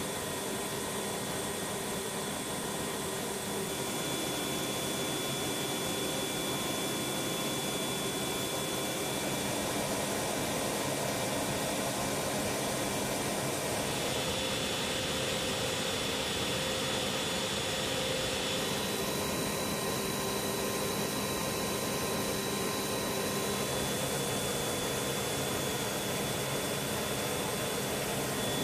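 Steady gas-turbine whine and hiss from an AH-64D Apache Longbow sitting on the ground with its rotors stopped, several steady tones over a continuous rush. The mix of tones shifts about halfway through.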